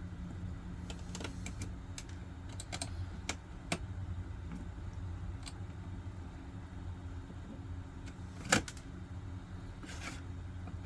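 Small screwdriver working the little screws holding a CD drive's motor, giving scattered light metal clicks and ticks, with one louder clack about eight and a half seconds in, over a steady low hum.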